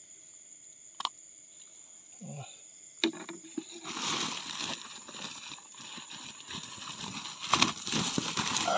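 Night insects trilling steadily in a high, even tone. About three seconds in, rustling and scuffing noises of handling start and grow louder, with several sharp clicks.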